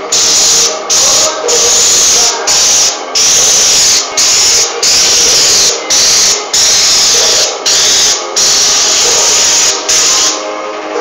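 Airless paint sprayer gun hissing as it sprays paint onto a wall, in a run of spurts of about half a second to a second with brief breaks between trigger pulls. The spray stops about ten seconds in.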